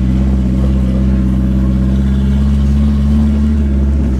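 Turbocharged Ford Thunderbird drift car's engine running steadily at low revs, rising slightly in pitch about three seconds in.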